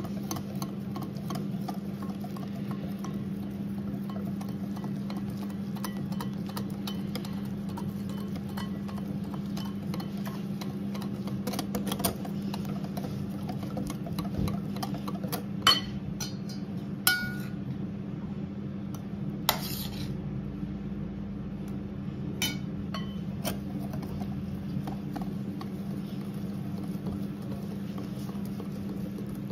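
Metal wire whisk beating muffin batter in a glass bowl: a continuous run of fast light ticks and scraping, with a few sharper ringing clinks of metal on glass around the middle. A steady low hum runs underneath.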